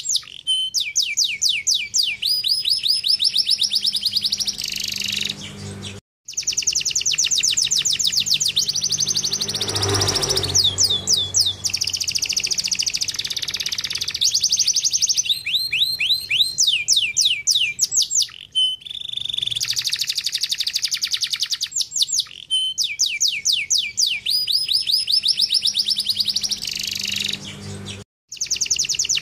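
Domestic canary singing: long fast trills of rapidly repeated sweeping notes, switching from one trill to another every second or two. The song cuts out abruptly for a moment about six seconds in and again near the end.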